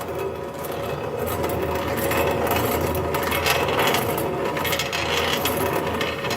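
Valve seat cutting machine cutting an old valve seat out of a cylinder head: a steady scraping of the cutter in the metal over the hum of the spindle motor.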